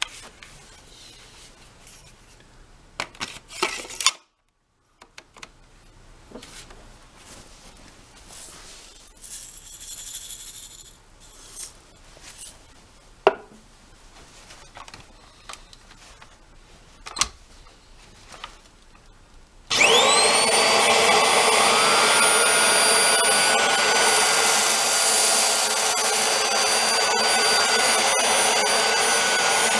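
Scattered clicks and knocks of plastic vacuum parts being handled, then, about twenty seconds in, a Hoover Air Steerable upright vacuum is switched on: its motor spins up with a rising whine and settles into a steady, loud run.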